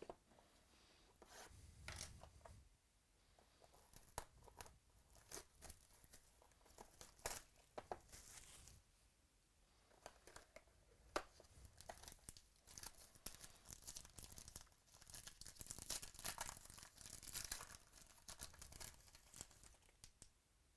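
Faint tearing and crinkling of trading-card packaging being opened, with scattered sharp clicks and rustles as the cards are handled.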